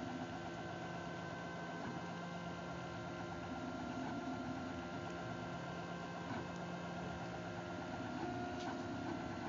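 Homemade chocolate 3D printer running as it extrudes chocolate: a steady mechanical whine made of several tones that change pitch now and then as the head moves.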